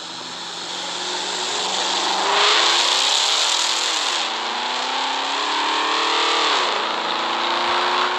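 Pontiac G8 GT's V8 engine accelerating hard through the gears, loud, its pitch climbing and then dropping at two upshifts about four and six and a half seconds in. The sound cuts off abruptly at the end.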